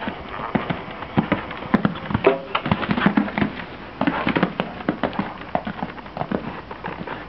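Horse's hooves thudding on arena sand at the canter and over a jump, a quick irregular run of hoofbeats, loudest about two seconds in.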